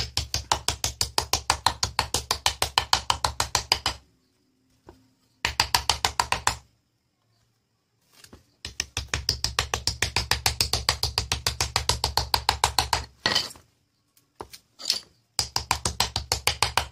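Small hammer tapping the steel laminations of a transformer core into place: rapid, even runs of light taps, about nine a second, in four bursts with short pauses between.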